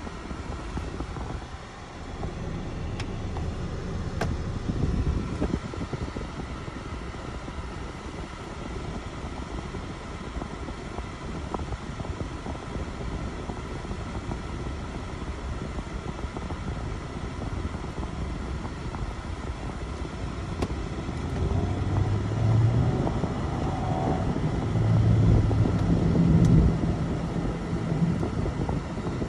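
Cadillac's engine and road noise heard from inside the cabin, a steady low rumble that grows louder, with a clear engine hum, in the last several seconds as the car drives on.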